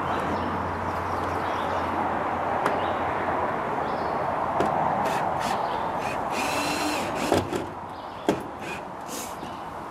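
Power drill driving a screw through a small wooden block into the wooden frame, running steadily for about seven seconds, then stopping. A couple of sharp knocks follow.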